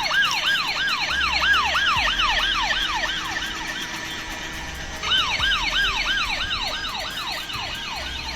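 Electronic siren of a toy RC police car: a quick falling wail repeating about three times a second. It fades away by about four seconds in and starts again about five seconds in.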